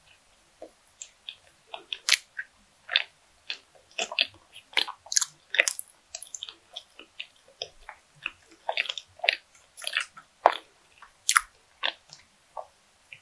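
Close-miked chewing of a mouthful of soft bread: irregular wet smacks and clicks, several a second. Near the end she takes a drink of milk from a glass.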